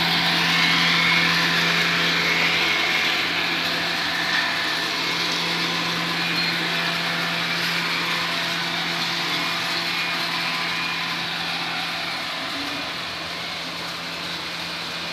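Grain-yard machinery running with a steady drone: a low hum under a broad whirring noise that slowly grows fainter.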